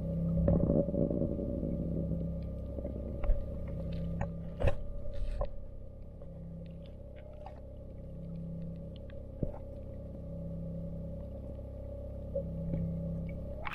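Underwater sound picked up by a submerged camera: a steady low mechanical hum, with one low tone switching on and off every second or two. A short crackle comes just after the start, and a few sharp clicks follow, the loudest a little before the middle.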